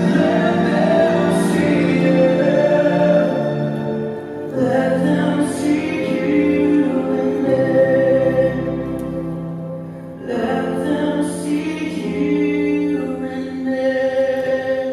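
Slow vocal music: sung phrases held over sustained accompaniment, with brief breaks between phrases about four and ten seconds in.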